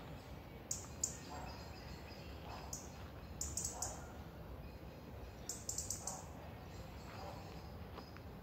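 Small birds chirping in short clusters of quick, very high notes, several times over, above a steady low background noise.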